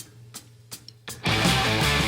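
Guitar music: a pause broken by a few sharp percussive ticks, then a loud strummed chord comes in just after a second in and rings on.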